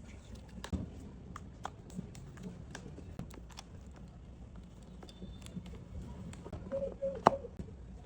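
Scattered light clicks and taps over a low steady hum, with one sharper, louder click about seven seconds in.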